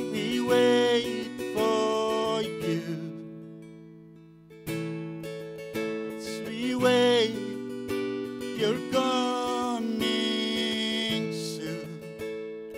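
A man singing a slow song while strumming an acoustic guitar. The chord dies away around four seconds in, then a new strum starts and the singing resumes.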